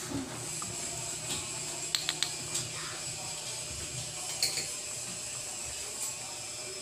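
Pot of dinuguan, pork stewing in pig's blood, bubbling at a simmer, with a few sharp clicks about two seconds in and another near the middle.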